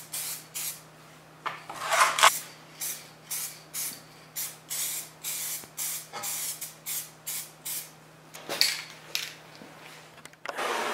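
Aerosol spray paint can spraying in quick short bursts, roughly two a second, with a few longer passes. A faint steady hum runs underneath.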